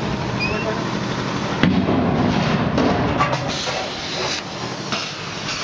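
Stainless-steel tray and perforated fryer basket clanking and knocking as cut potato strips are tipped in, a scattered run of knocks from about a second and a half in, over a steady low machine hum.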